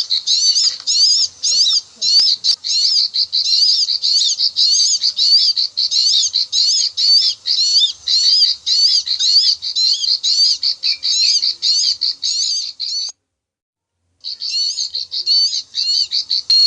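Ciblek sawah (prinia) 'klik-klik' call, as used for lure recordings: quick high-pitched chirping notes repeated at about three a second. The calling stops for about a second near the end, then starts again.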